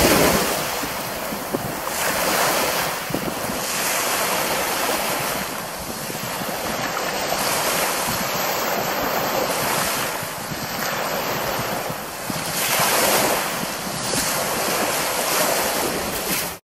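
Small waves breaking and washing up a sandy beach in repeated surges, with wind buffeting the microphone. The sound cuts off abruptly near the end.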